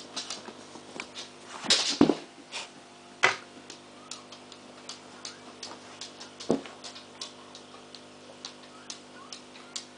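Irregular sharp clicks and ticks, several a second, over a steady hum, with a few louder knocks about two, three and six and a half seconds in: aquarium noises picked up through the tank.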